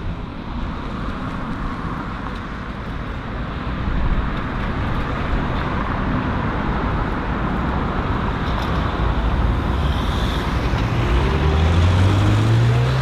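Road traffic on a wide multi-lane city road: steady tyre and engine noise of cars passing, swelling as vehicles go by. Near the end a low tone rises in pitch.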